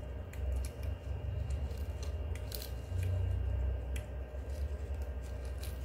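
Snap-off utility knife blade cutting the stiff spines off a golden barrel cactus (Echinocactus grusonii): scattered sharp snips and clicks as the spines are sliced away.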